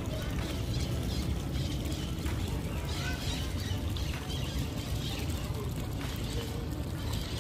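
Outdoor park ambience: a steady low rumble, with faint scattered bird chirps.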